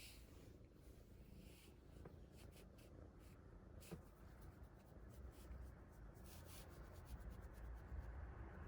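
Young kitten purring faintly as a low rumble, with light scratchy rubbing sounds over it.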